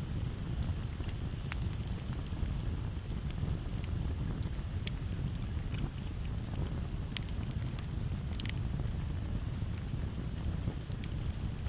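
Campfire crackling, with sharp pops scattered irregularly over a steady low rumble of wind. Crickets give a continuous high trill in the background.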